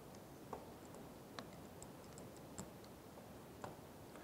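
About half a dozen faint, scattered clicks and ticks: a spanner wrench unscrewing the sight dome housing on an ARO 2000 series air-line lubricator.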